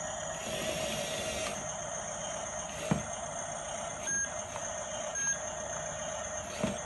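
Radio-controlled toy bulldozer running, its small motors and gearing whining steadily, with a sharp click about three seconds in and another near the end.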